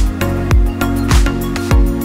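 Electronic background music with a steady beat: a deep kick drum a little under twice a second under sustained synth tones.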